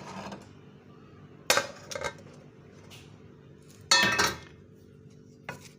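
A metal spoon clinking against a pan and plate while cooked chicken masala is spooned out: a few sharp clinks, the loudest about four seconds in.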